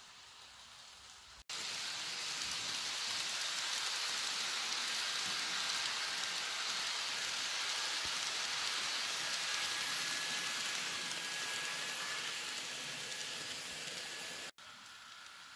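N scale model train (Atlas ALP-45DP locomotive with multilevel coaches) running on track close by: a steady hissing rattle of wheels on rail with a faint thin motor whine. It cuts in abruptly about a second and a half in and cuts off about a second before the end.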